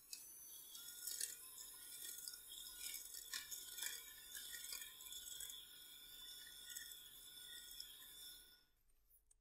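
Bosch electric hand mixer running with a steady high whine, its wire beaters creaming butter in a glass bowl and ticking against the glass now and then. It stops near the end.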